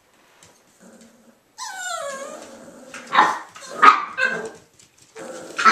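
Jack Russell Terrier puppies at play. About a second and a half in, one gives a high whine that falls in pitch, then come a few sharp yips and barks about three and four seconds in.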